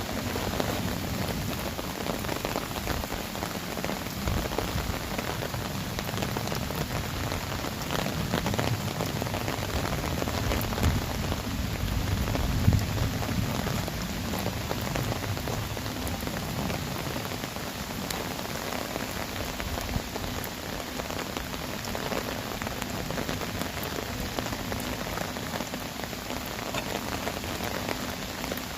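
Heavy rain pouring down onto earthenware crock jars on a jangdokdae: a steady dense patter with scattered sharper drop ticks and a low rumble, swelling a little before halfway.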